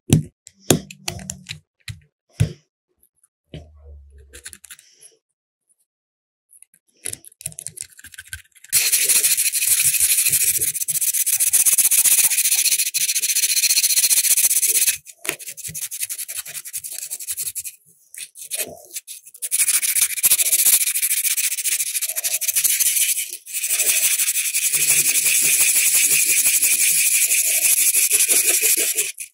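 Abrasive rubbing on a metal lighter part, hand sanding or scrubbing with rapid strokes, in long loud runs broken by a few short pauses. Before it starts, about eight seconds in, there are a few light clicks and knocks of handling.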